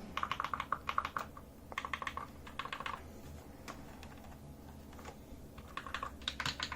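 Razer BlackWidow mechanical keyboard clicking as its keys or controls are pressed. The clicks come in short quick runs near the start, around the middle and near the end, with single clicks between.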